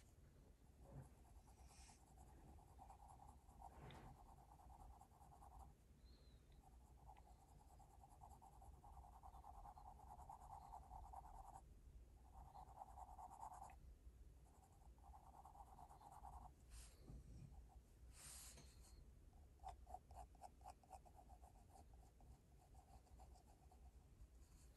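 Graphite pencil scratching faintly on drawing paper as it draws an eye. Shading strokes come in stretches of a few seconds with brief pauses, then a run of short, quick strokes near the end.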